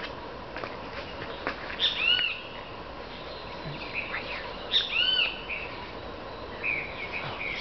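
Wild animal calls in tropical jungle: two loud whistled calls that rise and fall in pitch, about three seconds apart, with a few softer chirps near the end.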